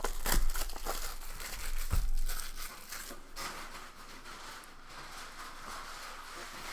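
Plastic wrapping on a blaster box of baseball cards crinkling and crackling as it is pulled off and crumpled by hand, with a couple of knocks in the first two seconds.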